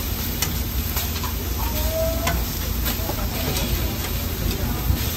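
Beef patties and fried eggs sizzling on a flat-top griddle, with a metal spatula clicking and scraping against the griddle surface a few times.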